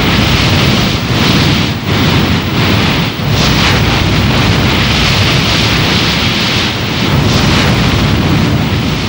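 Strong wind buffeting the microphone over the rush of sea churned up between two ships steaming close alongside. It is a loud, steady noise that dips briefly a few times.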